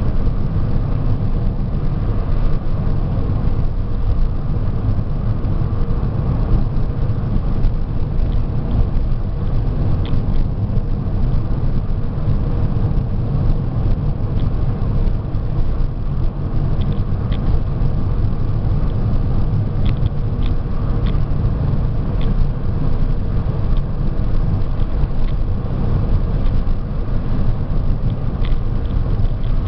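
Steady road and engine rumble of a moving car, heard inside its cabin, with a few faint clicks now and then.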